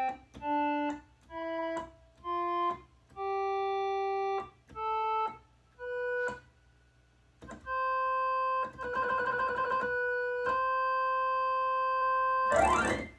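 Yamaha BK20AS electronic organ playing its accordion upper preset: a run of short separate notes, then long held notes with a fluttering stretch in the middle. A short, loud noisy burst comes just before the end.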